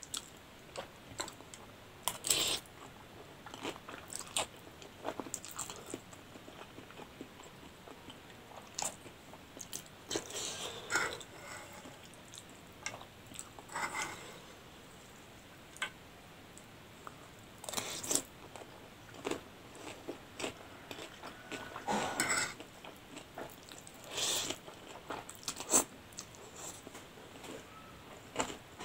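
Mukbang eating sounds: a person biting and chewing spicy instant noodles and a crisp fried dumpling. Short sharp crunches and smacks come at uneven intervals between quieter chewing.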